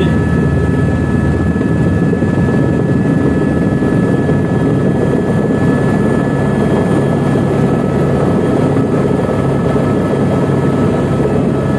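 Helicopter heard from inside the cockpit while descending to land: steady, loud rotor and engine noise with a thin high whine running through it.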